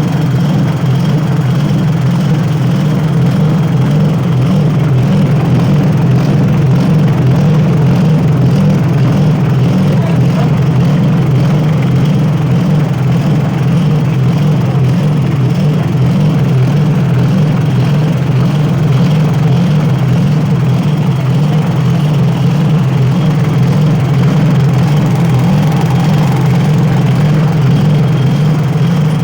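Small 7 hp petrol engine running steadily at a constant speed, driving a walnut-hulling machine through a reduction gearbox.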